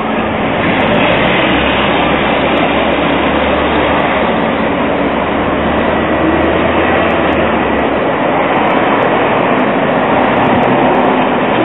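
Busy street traffic: a steady rush of passing vehicles at a city intersection, with a low engine hum for several seconds in the middle.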